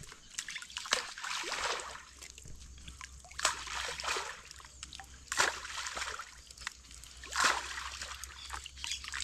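Handfuls of grainy groundbait thrown into a river, spattering onto the water surface in short splashes about every two seconds.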